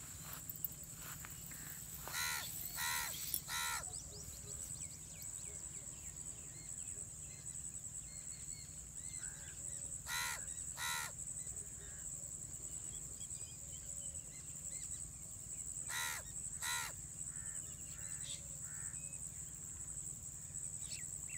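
Crows cawing: three harsh caws a couple of seconds in, two more around ten seconds, and two more around sixteen seconds, over a steady high-pitched insect buzz and faint chirps of small birds.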